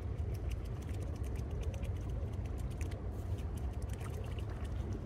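Raindrops ticking irregularly over a steady low rumble.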